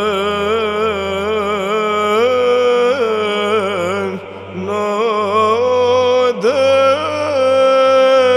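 Byzantine church chant: a voice sings a slow, ornamented melodic line, with frequent turns in pitch, over a steady held drone.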